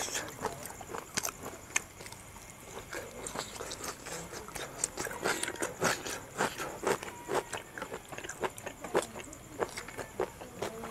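Close-up eating sounds: a person chewing and smacking their lips right by the microphone, with fingers working rice and pork curry in a bowl. Many short, irregular clicks.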